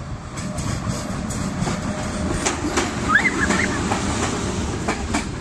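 Passenger train hauled by an electric locomotive passing close below. A low rolling rumble swells about a second in, and the wheels clack over rail joints at irregular intervals.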